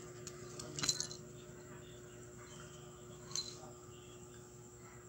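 Small bell on a cat's collar jingling briefly as the cat moves, twice: about a second in and again near the middle. A faint steady hum runs underneath.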